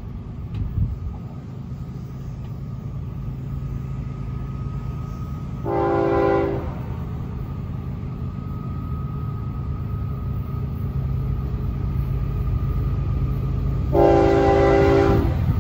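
Florida East Coast freight locomotive's air horn sounding for a grade crossing as the train approaches: one blast of about a second about six seconds in, then a long blast starting near the end, over the low rumble of the approaching train, which grows louder.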